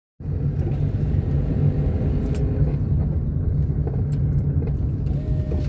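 Steady low rumble of a car's engine and tyres heard from inside the cabin while driving along a city street; it cuts in abruptly just after the start.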